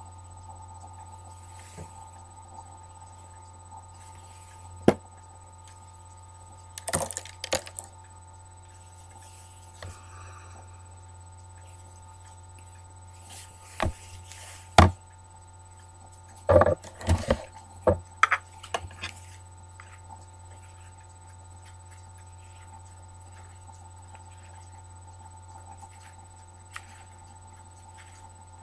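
Handling of a metal tobacco tin and a pipe while opening the tin and filling the pipe: a few sharp clicks and knocks in short clusters, loudest about halfway through, over a steady low hum.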